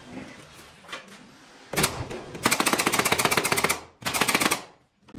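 Nail gun firing into wooden trim: a single shot, then a rapid run of many shots lasting over a second, then a shorter rapid burst.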